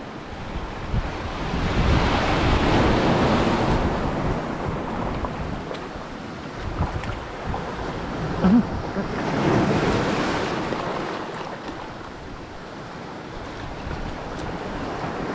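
Surf washing in over a rocky shore, swelling twice: around two to four seconds in and again around nine to eleven seconds. Wind buffets the microphone, and a brief sharp noise comes about eight and a half seconds in.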